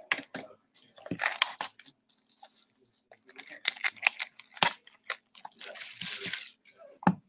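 Clear plastic shrink-wrap being torn and crumpled off a trading-card box: spells of crinkling and crackling with a few sharp clicks between them.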